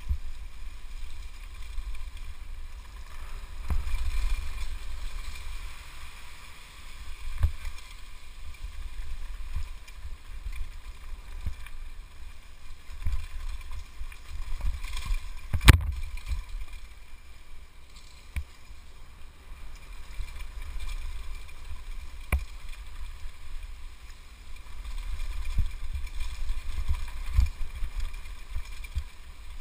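Downhill mountain bike (Scott FR30) descending a rough dirt trail at speed: a steady low wind rumble on the helmet-camera microphone, with the bike knocking and rattling over bumps. There are several sharp knocks, the loudest about halfway through.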